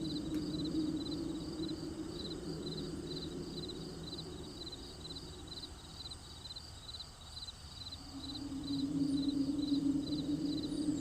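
Crickets chirping in an even, steady rhythm, about two to three chirps a second, over a low drone that fades away in the middle and comes back about eight seconds in.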